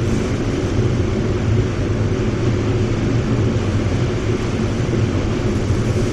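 Spray booth's ventilation fans running: a steady rush of air with a low hum underneath.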